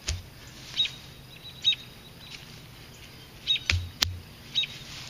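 A bird chirping repeatedly, one short high chirp about every second. A little past halfway come two dull knocks, a hand digger working in the turf.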